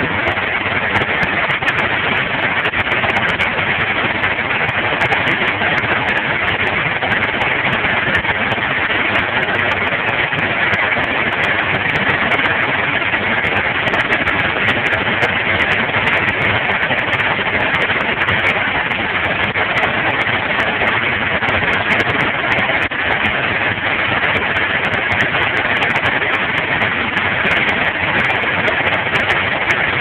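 Antique sawmill and its old Case engine running steadily: a loud, constant mechanical din that holds even throughout, with no cut into a log breaking the sound.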